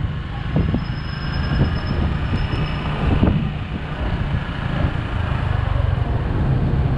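Motorcycle engine running at low road speed, with steady road and wind noise.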